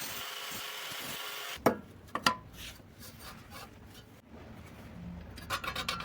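A steady scraping noise from a tool working steel pipe cuts off about one and a half seconds in, followed by two sharp metal knocks and, near the end, a quick run of clicks.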